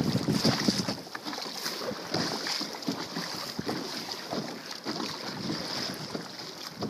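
Sea water splashing and lapping against a kayak hull in small irregular splashes, with wind buffeting the microphone.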